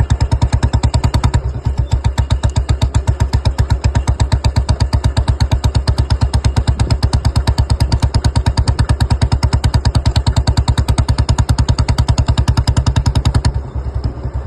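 Old-model Royal Enfield Bullet's single-cylinder engine running with a rapid, even beat after its piston-pin knock has been repaired. Near the end the beat weakens and turns uneven.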